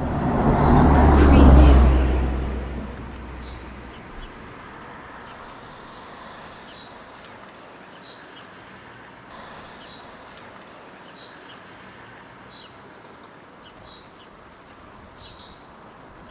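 A vehicle passes close by, its low rumble swelling to a peak about a second and a half in and fading within a few seconds. After that a bird repeats a short high chirp every second or so over faint background hiss.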